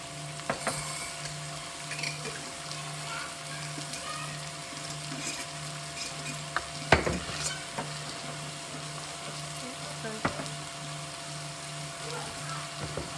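Onions, garlic and steak sizzling steadily in a pot, with a few short sharp clinks and knocks of a jar and pot, the loudest about seven seconds in.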